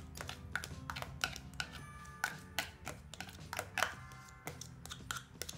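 A metal spoon tapping and scraping chopped green chili out of a small plastic container into a ceramic bowl: a run of irregular light clicks and taps.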